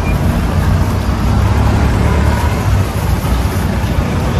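Steady low rumble of street traffic, with vehicle engines running.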